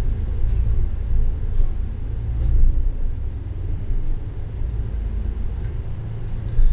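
Steady low rumble of a double-decker bus driving along, heard from inside on its upper deck, with a few faint rattles.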